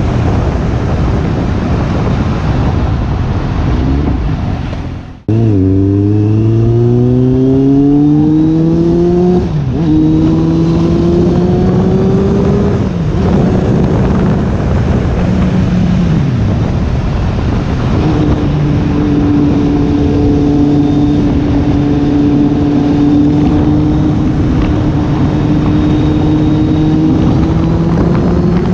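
Kawasaki Z800's inline-four engine through a Two Brothers aftermarket exhaust, heard over wind noise as the bike is ridden hard. After a brief drop-out about five seconds in, the engine note climbs steeply through a gear, upshifts near ten seconds and climbs again. It then settles into a steady cruise that rises slowly.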